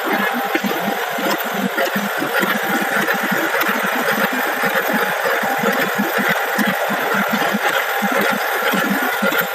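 IECHO GLSA automatic fabric cutting machine running steadily: a fast, uneven chatter over a constant whir.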